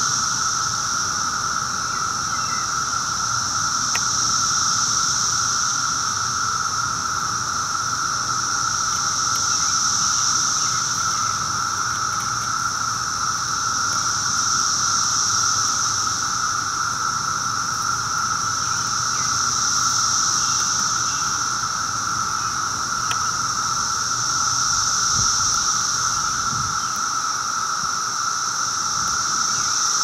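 A loud chorus of Brood II periodical cicadas singing: a steady din at two pitches, a lower buzz and a higher one, the higher one swelling and fading about every five seconds.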